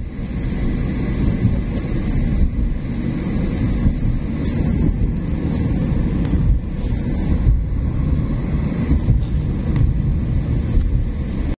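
Steady low rumble of a moving car, with wind buffeting the microphone.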